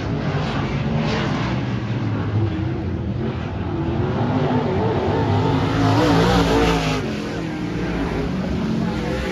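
Dirt-track race car engines running on the track, their pitch rising and falling as they rev through the turns and straights.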